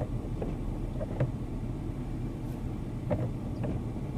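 Low, steady rumble of a vehicle engine idling, heard from inside the cab, with a few faint irregular clicks.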